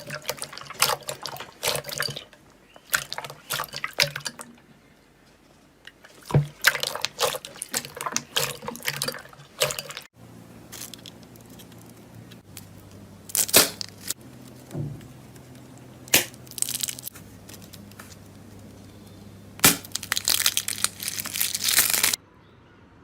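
Bursts of crisp crackling and wet clicks from a soft material, slime or soap, being pressed and worked by hand. They come in short runs separated by brief pauses.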